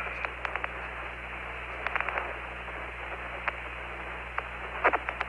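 Open-channel radio static on the Apollo 15 air-to-ground voice loop: a steady narrow-band hiss over a low hum, with scattered faint clicks and one short, louder blip near the end.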